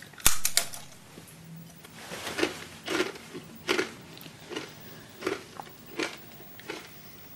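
Loud crunching of dry sushki (hard Russian bread rings) being bitten and chewed: one sharp snap as a ring is bitten about a third of a second in, then a steady run of crunches about every three-quarters of a second.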